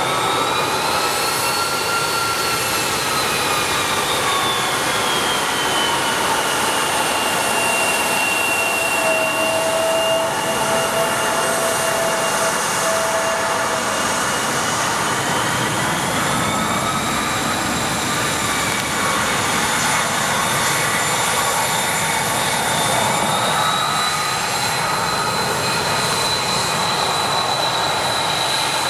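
The twin rear-mounted turbofans of a Bombardier CRJ-900 regional jet run at taxi power. Their high whine rides over a steady rushing noise and drifts slowly up and down in pitch as the airliner turns and moves off.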